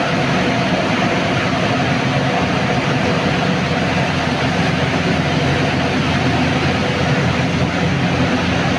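Lead-melting furnace running steadily: a continuous loud rush of its burner and air blower, with a faint steady hum under it.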